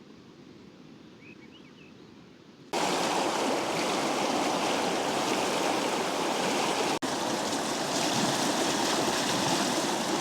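Mountain river water rushing, a steady loud wash of noise that starts suddenly about three seconds in, after a faint quiet stretch with one brief chirp; it cuts out for an instant about seven seconds in.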